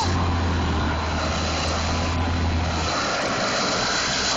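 ATV engine running steadily under a dense haze of noise; its low drone drops away about three seconds in.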